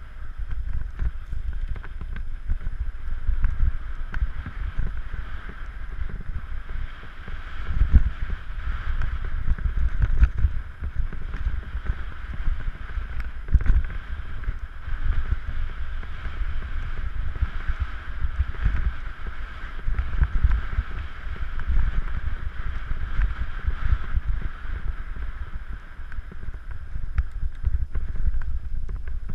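Wind buffeting the microphone in gusts, over a steady rushing noise of movement.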